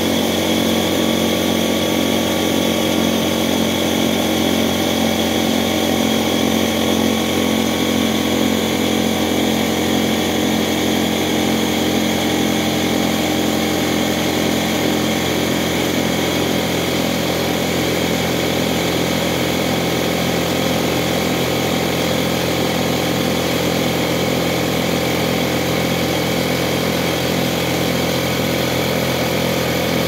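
DeVilbiss PAFA125-1 2.5-gallon air compressor running steadily, its pump filling the tank as the pressure climbs. It runs like new on a newly installed pressure switch.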